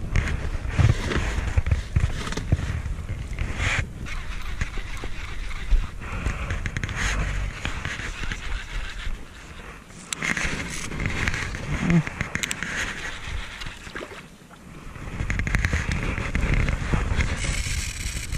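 Wind buffeting the microphone and choppy sea water lapping against an inflatable boat, with a few short knocks of gear on the boat.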